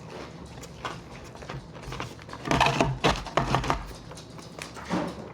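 People eating fast food quickly, with chewing and mouth noises. A few short, muffled pitched sounds come from about two and a half to four seconds in, and once more near the end.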